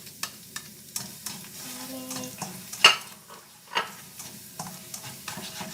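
Garlic frying in hot oil in a pan, sizzling steadily while a utensil stirs it, with repeated clicks and scrapes against the pan and one sharp clack about halfway through.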